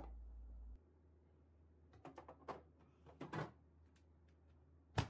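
Built-in freezer being opened and its drawer handled: a scatter of light knocks and clicks of plastic and door parts, then one sharper click near the end.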